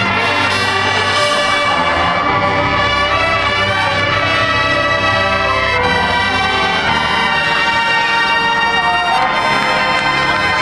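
High school marching band playing, with the brass section to the fore, held chords shifting every few seconds.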